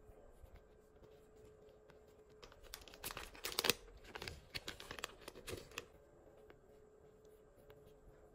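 Frosted plastic zip-lock sticker pouch crinkling and tearing as it is pulled open, a dense cluster of crackles from about two and a half seconds in until about six seconds in.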